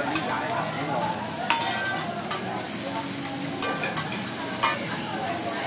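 Chopped onions and vegetables sizzling on a hot teppanyaki griddle while a metal spatula scrapes and pushes them across the steel, with a few sharp clacks of the spatula on the plate, the loudest near the end.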